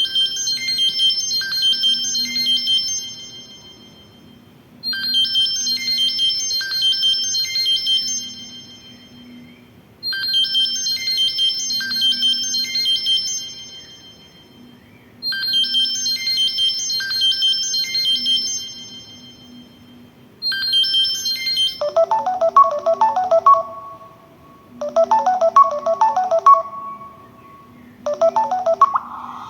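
Samsung Galaxy Young 2 playing its preset ringtones. A high, bright chiming melody loops about every five seconds and is cut off about 21 seconds in. A different, lower-pitched ringtone then follows, repeating about every three seconds.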